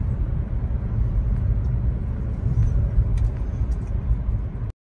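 Steady low road and engine rumble inside the cabin of a moving Buick car, cutting off suddenly near the end.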